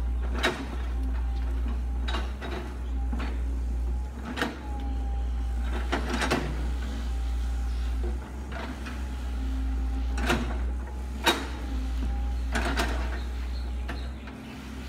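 Kobelco hydraulic excavator's diesel engine running steadily, with a faint whine that comes and goes, as its bucket tears into a bamboo clump: sharp cracks and snaps of bamboo canes breaking every second or few, irregularly.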